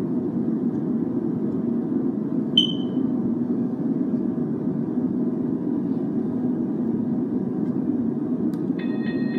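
Toy railroad crossing gate's electronic warning bell starting near the end, a rapid repeating high electronic ding as the crossing cycle is switched on. Earlier, about two and a half seconds in, there is a single sharp click with a short ring. A steady low hum runs underneath throughout.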